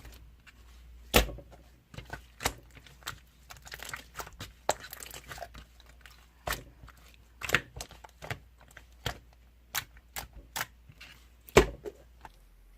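Clear slime being squeezed and pressed by hand, giving irregular sharp clicks and small pops with a brief run of crackling in the middle; the two loudest pops come about a second in and near the end.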